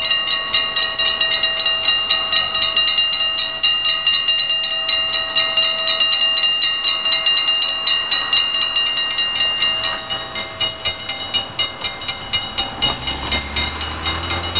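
Level-crossing warning bells ringing fast and evenly, about four strikes a second, while the barriers lower. Near the end a low rumble of the approaching train builds up under the bells.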